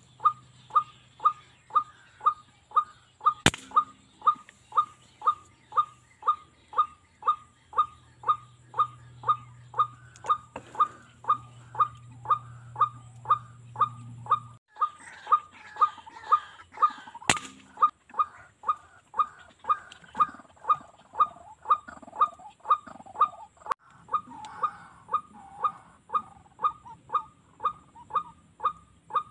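White-breasted waterhen (ruak-ruak) calling: one short note repeated steadily about twice a second. Two sharp clicks come through, one a few seconds in and one about halfway.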